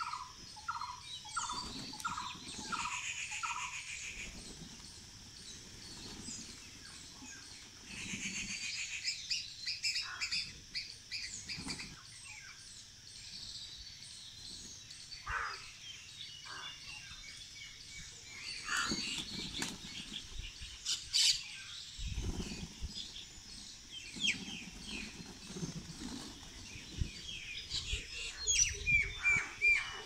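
Several birds chirping and calling, including a run of evenly repeated calls about twice a second in the first few seconds. Occasional short low flutters of pigeon wings come from the flock feeding on the roof.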